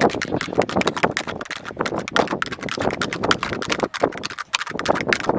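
Rapid, uneven tapping on a plastic kolukattai (modak) mold, a quick run of sharp clicks several times a second.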